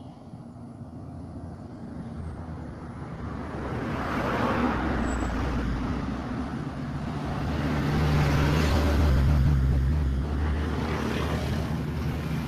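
Road traffic: vehicles passing one after another, the sound swelling about four seconds in and again, louder and longer, around the eight-to-ten-second mark, with a low engine hum under tyre noise.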